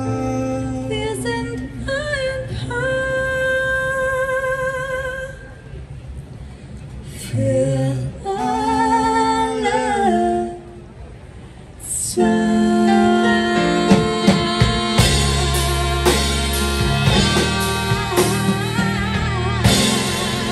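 Live band with female and male vocals: held sung notes with vibrato over keyboard, then drums and the full band coming in about twelve seconds in.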